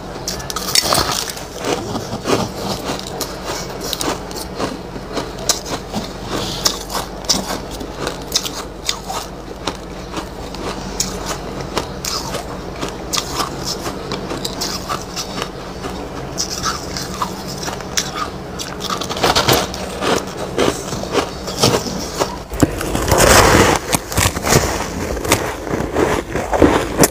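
Close-up crunching of packed white snow ice being bitten and chewed: a rapid, irregular run of sharp crackling crunches, denser and louder in the last few seconds.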